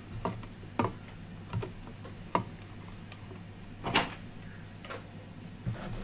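Scattered small clicks and knocks of plastic cable connectors and a small controller box being handled and set down on a desk, about seven in all, the loudest about four seconds in.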